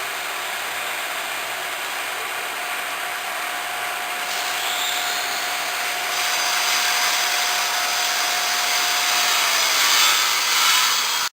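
Automatic granite-cutting saw machine running its stone-cutting blade: a steady hiss with a thin whine that dips slightly in pitch near the end, getting louder about six seconds in.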